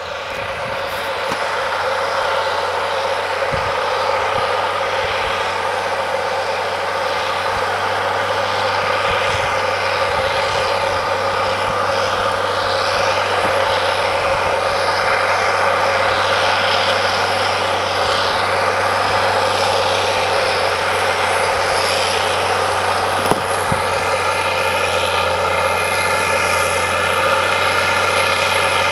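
Cat Challenger MT865C tracked tractor working under load as it pulls a Våderstad cultivator through dry stubble, with engine and tracks running steadily. It grows louder over the first couple of seconds as it comes closer.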